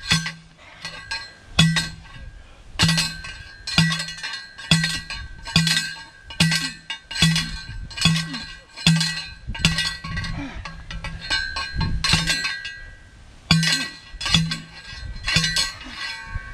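Yellow manual post driver pounding a steel ground rod into the earth: a sharp metallic clang about once a second, each with a ringing tail. The strikes pause briefly about two-thirds of the way through, then resume.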